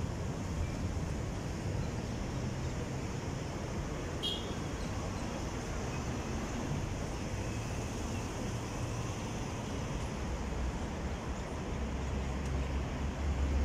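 Steady street traffic: a continuous low rumble of passing cars' engines and tyres, with a brief high squeak about four seconds in.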